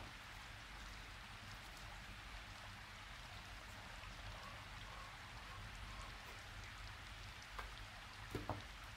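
Faint steady hiss, with a few soft knocks near the end as a spoon and a plastic food-processor bowl of fish paste are handled.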